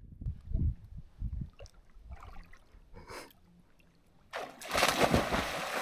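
Rushing, splashing water that comes in suddenly and loudly about four seconds in, after a few low dull thumps.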